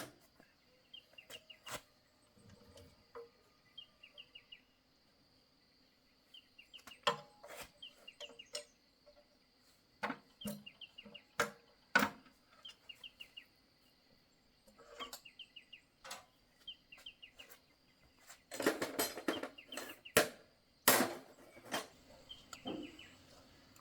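Scattered clinks and knocks of hand tools on metal during tractor repair work, with a denser run of them near the end. Birds chirp in the background, and there is a faint steady hum.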